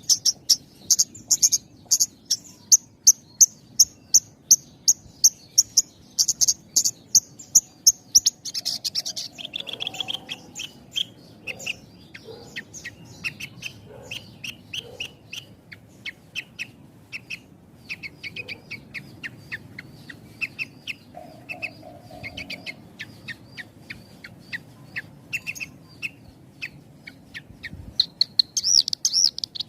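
Javan bush lark (branjangan) singing a dense song with short pauses: a quick run of sharp, high chirps for about eight seconds, then lower, varied notes, and a loud, fast high trill near the end.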